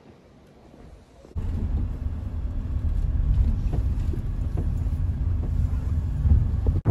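Car on the move: a steady low road and engine rumble that cuts in suddenly about a second in, after a short stretch of quieter background.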